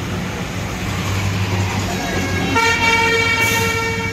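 A tractor's diesel engine idles steadily. About two and a half seconds in, a vehicle horn sounds one steady, loud toot lasting about a second and a half, louder than the engine.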